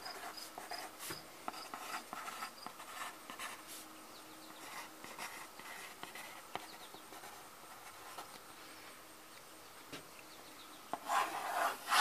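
Pencil writing on paper on a clipboard: short scratchy strokes, denser in the first few seconds. A high, regular chirping sounds in the background early on, and there is a louder scrape near the end.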